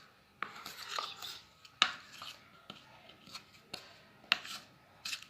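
A spoon mixing flour, salt, oil and water into dough in a bowl: a series of irregular clicks and knocks, about one or two a second, with soft scraping between them.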